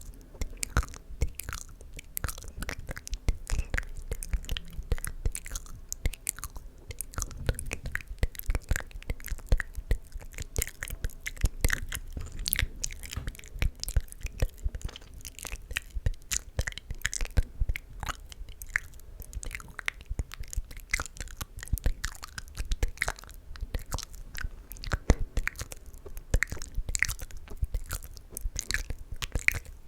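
Close-miked ASMR mouth sounds: a rapid, irregular run of wet clicks and smacks from the lips and tongue, several a second.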